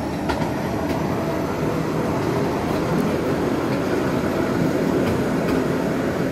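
Electric rack-railway train running uphill, heard from inside the carriage: a steady rumble with a few faint sharp clicks.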